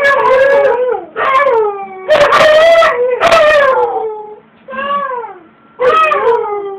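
Husky 'talking': a run of about six drawn-out, howl-like calls, one after another with short gaps, each wavering and sliding in pitch.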